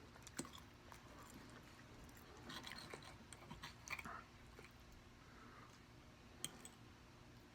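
Close-up chewing with a few sharp clicks of bites, busiest about two and a half to four seconds in.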